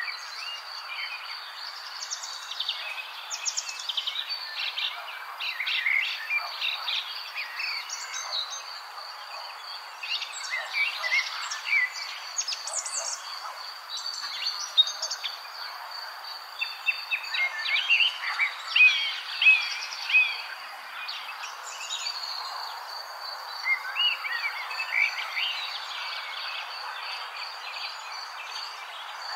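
Birds chirping and singing in quick, varied calls over a steady high insect trill.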